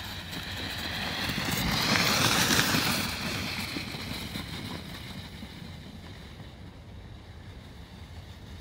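Snowboard sliding over packed snow: a scraping hiss that grows as it passes close about two seconds in, then fades as it glides away. Wind noise on the microphone throughout.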